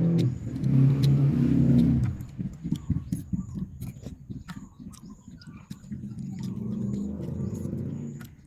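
A motor vehicle engine running, loudest in the first two seconds and swelling again near the end, with scattered light clicks and taps.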